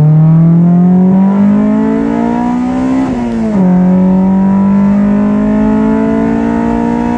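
Honda Civic four-cylinder engine revving high under hard acceleration, heard from inside the cabin. The pitch climbs, drops with an upshift about three seconds in, then climbs again more slowly.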